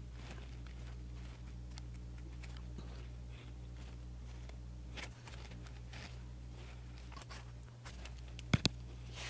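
Faint, scattered ticks and scratches of a fine paintbrush dabbing acrylic paint onto a canvas, over a steady low electrical hum, with two sharp clicks close together about eight and a half seconds in.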